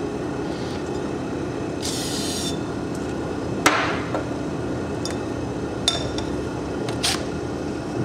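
A short hiss of an aerosol lubricant being sprayed, then a sharp metallic clank about halfway through and a couple of lighter clinks as the metal fuel-pump cover and tools are handled. A steady low hum runs underneath.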